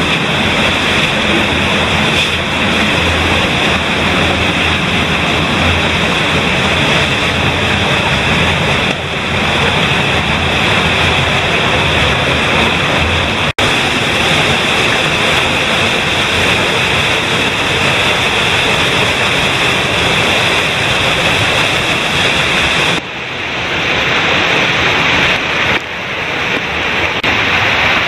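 Loud, steady rushing of a fast-flowing underground cave stream in a narrow rock passage, broken by a brief cut about halfway through.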